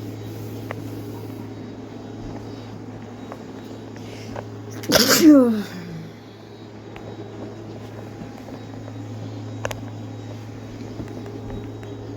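A person sneezes once, about five seconds in: a sharp burst followed by a falling voiced tail. A steady low hum runs underneath.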